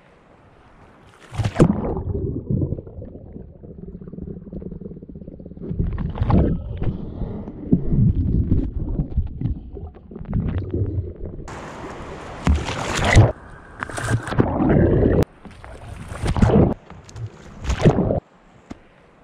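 A whitewater kayak capsizing and its paddler attempting a roll, heard from a camera on the boat as it goes under: a sudden splash about a second in, then muffled underwater churning and gurgling broken by repeated loud surges of splashing. The roll attempt fails.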